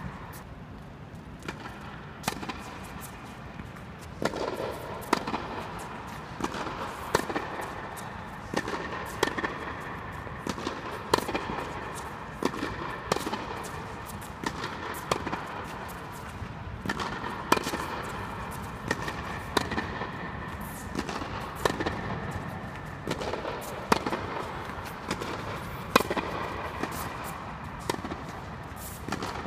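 Tennis rally: rackets striking the ball and the ball bouncing on the court, sharp cracks about once a second, over a faint steady hum.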